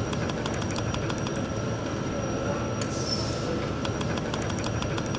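Steady workshop machinery noise with a thin high whine and irregular sharp clicks.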